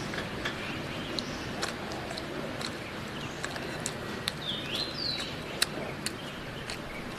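Eating sounds: sharp clicks of chopsticks against the bowl and chewing as rice and stir-fried pork are eaten. A bird gives two short falling chirps about halfway through.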